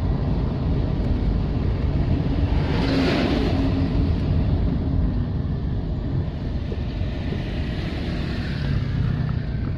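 Motor vehicle traffic running through floodwater, a steady low rumble of engines and rushing noise. A brief louder rush comes about three seconds in.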